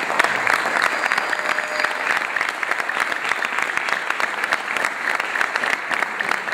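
Audience applauding: a steady mass of many hands clapping.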